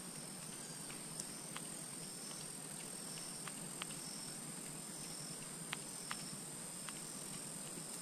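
Faint, irregular sharp clicks, roughly one or two a second, from a fishing rod and reel as a topwater stickbait is twitched and reeled back across the water. A faint steady high-pitched hum runs underneath.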